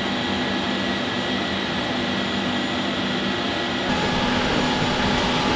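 Steady drone of aircraft machinery with several held whining tones; about four seconds in the set of tones changes.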